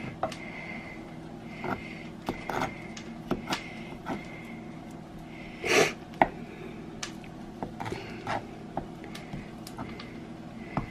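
Scattered small pops and clicks from a pan heating on the stove and a knife peeling grilled tomatoes on a cutting board, over a steady kitchen fan hum. A single sniff is heard near the middle.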